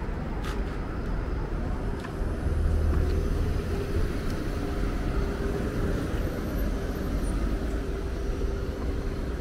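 Steady low rumble of urban background noise, with a faint steady hum through most of it.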